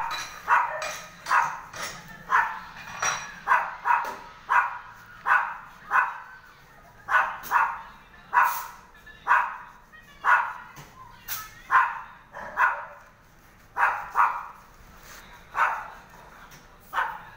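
Dog barking over and over, about one bark a second, with short gaps.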